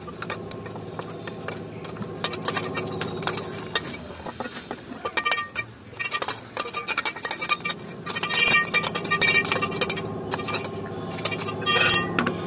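Light metallic taps, clinks and scrapes on a stainless steel mixer-grinder jar as ground poppy and sesame seed powder is knocked and scraped out into a bowl. The tapping is busiest in the second half. A steady low hum runs underneath.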